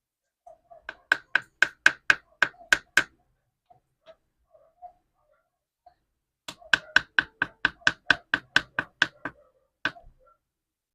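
Two runs of quick, sharp knocks on something hard, about four a second: about nine at first, then a dozen more after a pause of a few seconds, with one last knock near the end.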